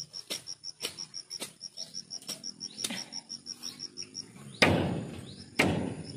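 A cricket chirping steadily at about five chirps a second, over repeated short snaps and knocks from weeding among the garden plants. Two much louder sudden crashes come near the end.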